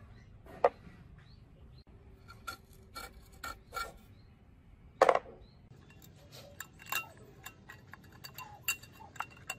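Metal parts of a dismantled small four-stroke engine and a steel hand tool clinking and knocking together as they are handled: a dozen or so irregular sharp clicks, the loudest about five seconds in.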